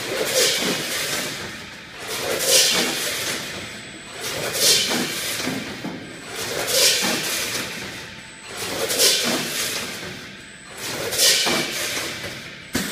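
Vertical form-fill-seal pouch packing machine with a multi-head weigher cycling steadily, about one bag every two seconds. Each cycle brings a short burst of hiss and rattle, with clicks between, and a sharp click near the end.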